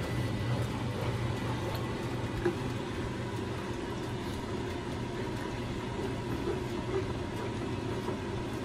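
Steady low mechanical hum with a few faint knocks scattered through.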